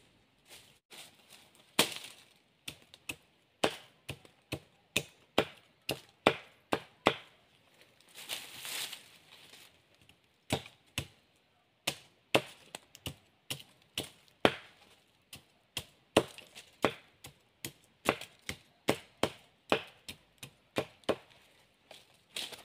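Machete blade chopping and trimming a thin wooden stick in a run of sharp chops, about two a second, with a short rustle about eight seconds in.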